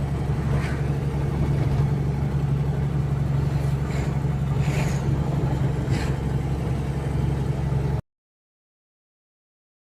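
A vehicle engine running steadily at an even pitch, with a few faint rattles, cut off abruptly to silence about eight seconds in.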